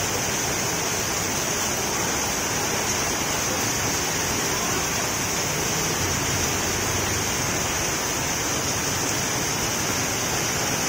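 Heavy tropical downpour: a steady rush of rain falling on the street and pouring off an awning, making plenty of racket.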